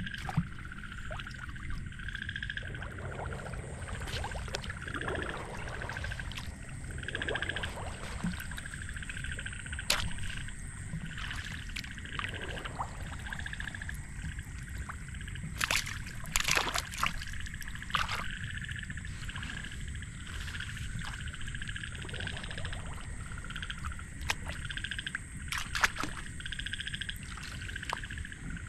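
Frogs calling in a chorus of short pulsed calls repeating about once a second, with a thin steady high tone above them and a few sharp clicks now and then.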